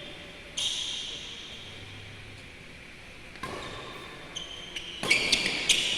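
Badminton play on an indoor court: short high squeaks of court shoes and sharp hits, with a quick cluster of hits and squeaks in the last second.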